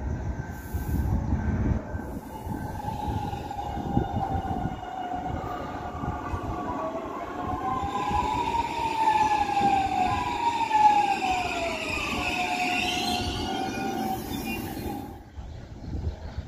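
Series 8900 electric trains running through a station: a steady rumble of wheels on rail under a whine whose several tones glide up and down in pitch and cross each other, strongest in the middle. The sound drops away near the end.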